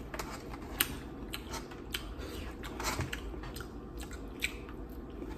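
Close-up eating sounds from a seafood boil: chewing and mouth smacks, with a handful of sharp clicks and cracks as crab and shrimp are picked apart by hand.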